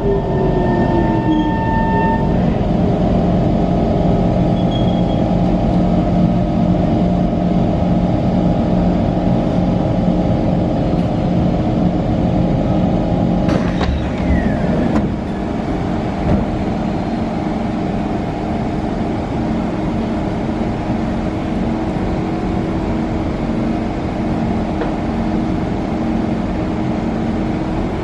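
SMRT C151 train standing at a station, its onboard equipment humming steadily, with a short falling whine in the first second as it comes to a halt. About halfway through there is a sharp knock and a brief falling whine, after which the hum is a little quieter.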